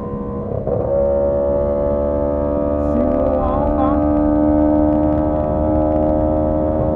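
Honda CB125T's air-cooled parallel-twin engine running at steady cruising revs, its note shifting and getting louder about a second in, then holding even, with low wind rumble underneath.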